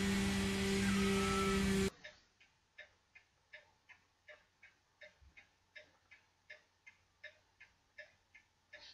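A steady electrical hum with two steady tones cuts off suddenly about two seconds in. Faint, even ticking follows, a little under three ticks a second, like a clock.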